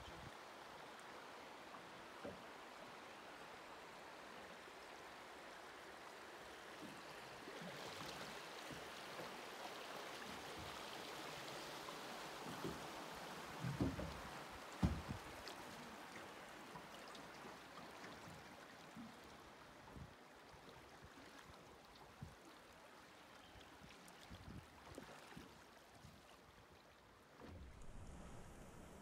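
River water rushing and rippling past a drift boat through a riffle, a faint steady hiss that swells in the middle. A few low thumps stand out, the loudest two close together about halfway through.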